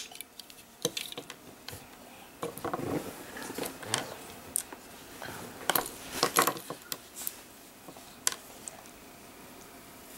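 Small plastic toy pieces being handled, giving irregular light clicks and knocks, with a denser, louder run of clicks about six seconds in.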